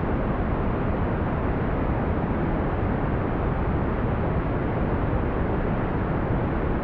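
Smooth brown noise: a steady, deep rushing hiss, strongest in the lows and rolled off in the highs, with no change in level.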